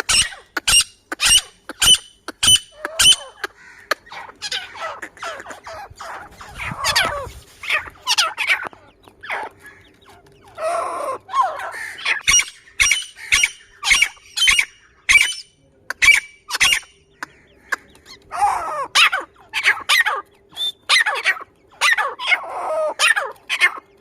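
Grey francolin calling: runs of sharp, loud repeated notes, about two a second, broken by harsher, scratchier phrases.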